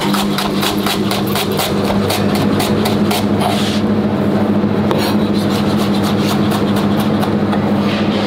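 Chef's knife rapidly chopping shallots on a plastic cutting board, an even run of quick knocks about five a second that stops about four seconds in, followed by a few scattered knocks. A steady low hum runs underneath.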